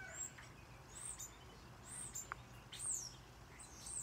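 Small songbird chirping faintly: short high notes, each falling in pitch, repeated about once a second.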